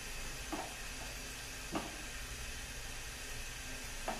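Tomato-and-spice masala sizzling gently in a nonstick pan, a steady hiss, with a few brief scrapes of a silicone spatula stirring it.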